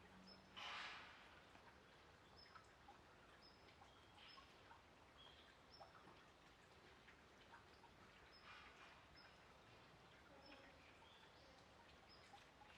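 Near silence: faint outdoor ambience with short high chirps recurring every second or so, and a brief rustling burst about a second in.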